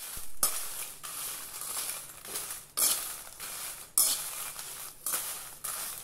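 Perforated metal spoon stirring and scraping dried red chillies around a metal kadai while they dry-roast: a series of scraping, rustling strokes, some starting sharply.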